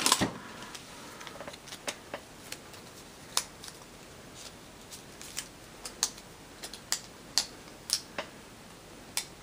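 Light, irregular clicks and taps of small hard plastic pieces being handled and set down, a dozen or more spread out with short gaps between them.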